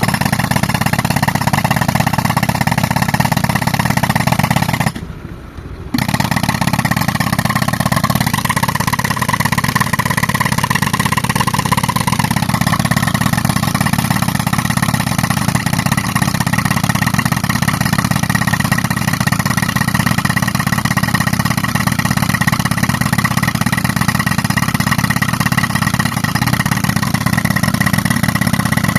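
Tractor-driven air compressor and pneumatic rock breaker running continuously while breaking a boulder. The noise drops sharply for about a second about five seconds in, then resumes.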